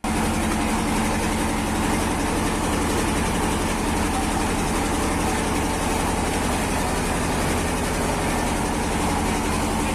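Boat engine running steadily at a constant speed, a low even drone with a hiss above it, cutting in abruptly.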